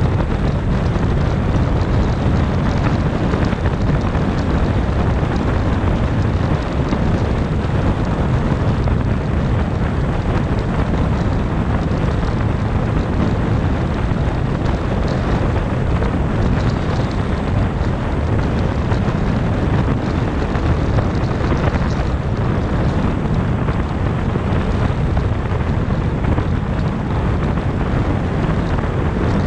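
Steady road noise from a car at highway speed: a constant low tyre rumble with wind noise over it.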